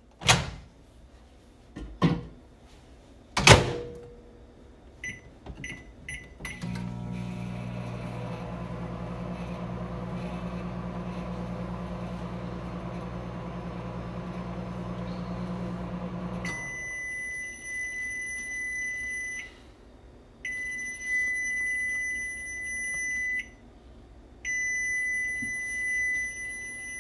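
Microwave oven: three thumps, a few short keypad beeps, then a steady low hum as it runs for about ten seconds. The hum stops and three long high-pitched beeps sound, each about three seconds, marking the end of the cooking cycle.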